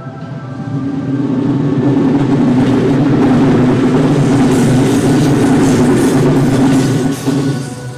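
A JR Takayama Line train passing close by at speed. Its running noise swells up within the first second, stays loud for about six seconds with the wheels clattering on the rails in the second half, then fades away near the end.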